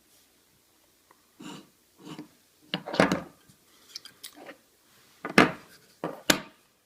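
A 1941-replica Zippo lighter being handled: a few soft rubbing sounds, then sharp metallic clicks and clacks about three seconds in and twice more near the end.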